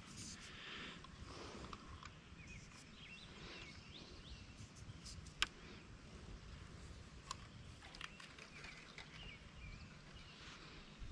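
Faint outdoor ambience with scattered short bird chirps and a few sharp faint clicks, the clearest about five seconds in.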